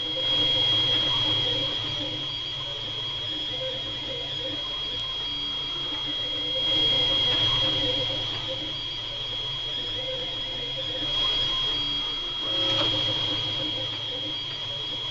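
Desktop FDM 3D printer printing: its stepper motors whine in shifting tones as the print head moves, over a steady high-pitched tone and a low fan hum. The sound grows louder a few times.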